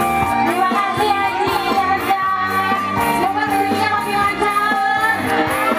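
A woman singing a wavering, bending melody with a live band over a steady beat.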